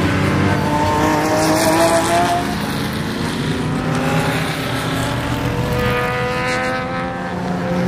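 Race cars, a mix of sports-prototypes and GT cars, accelerating out of a tight corner one after another. Their engine notes rise as each car pulls away, with one surge in the first couple of seconds and another about five seconds in.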